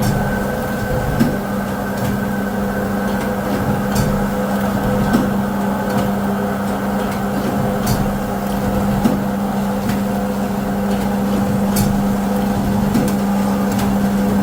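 Zipper-making machinery running: a steady hum with a mechanical clatter and a few sharp clicks at irregular intervals.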